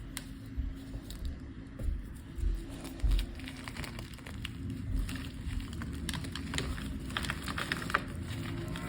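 Blocks of gym chalk being crushed and crumbled, giving a run of dry crunches and crackles that grow denser in the second half. There are a few dull low thumps in the first three seconds.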